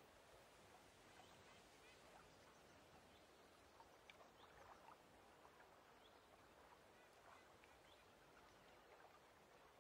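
Faint lake ambience: a soft, even wash of water with scattered small ticks and splashes.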